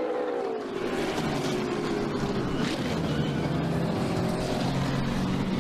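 NASCAR stock cars' V8 engines running together at low, steady speed with the car and track noise of a crash scene.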